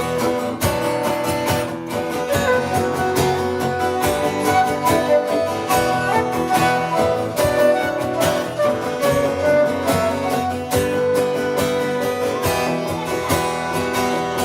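Live band playing an instrumental passage between sung verses, led by strummed guitar with sustained pitched notes under it.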